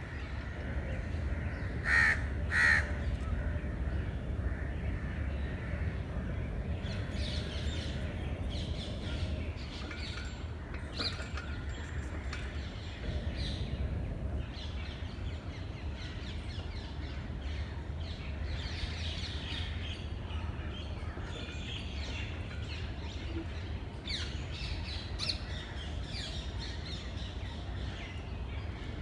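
Birds calling in the trees: two loud calls close together about two seconds in, then scattered fainter chirps throughout, over a low steady rumble.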